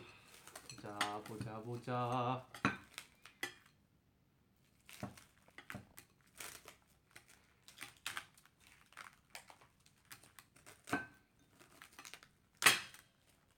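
China dishes clinking and knocking: a bowl on a saucer is handled and uncovered, giving a scatter of light clicks, with one louder clink near the end.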